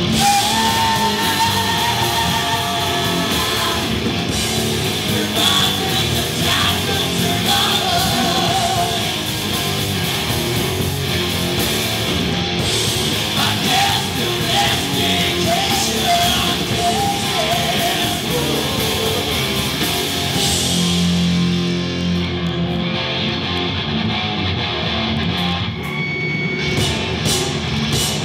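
Live rock band playing loud: a woman sings into the microphone over guitars and bass guitar.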